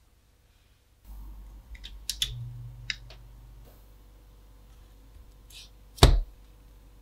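A few light clicks and knocks, then about six seconds in a single loud knock as a slice of bread is dropped into an empty nonstick frying pan on a glass-top stove.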